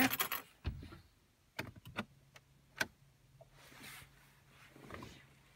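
Keys jangling as a Land Rover Freelander 2 key fob goes into its dashboard slot, followed by several sharp clicks over the next two seconds. A faint steady hum then sets in, with soft swells of noise near the end.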